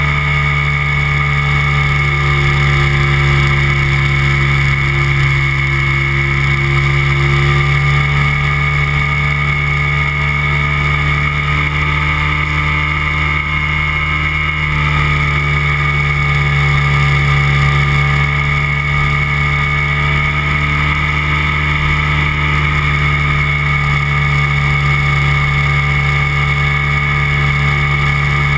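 Flex-wing microlight trike's engine and propeller running steadily in level flight, its pitch dipping slightly and settling again about halfway through.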